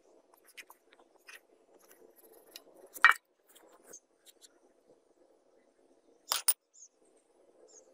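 Gloved hands pressing and scraping damp sand packed around a metal cleaver blade in a wooden mould box, a soft grainy rustle. A sharp knock about three seconds in, and two quick knocks a little past six seconds.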